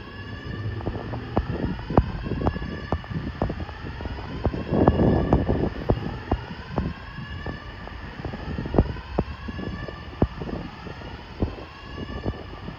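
Building fire alarm sounding the whoop tone: a siren sweeping upward in pitch over and over, heard from outside. Sharp clicks run through it, with a rush of noise about five seconds in.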